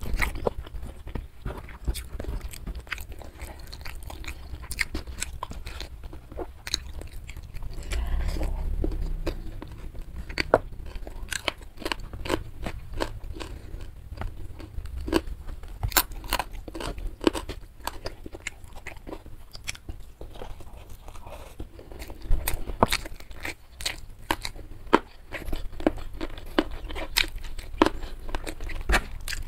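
Close-miked chewing and crunching with many sharp wet mouth clicks, from eating rice with spicy squid and fried salted sepat (gourami) fish by hand.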